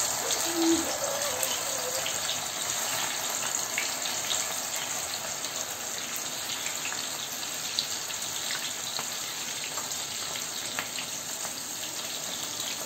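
Wet, soaked chana dal deep-frying in hot oil in a steel kadhai: a steady, vigorous sizzle and bubbling as the water in the damp dal boils off, easing gradually over the seconds.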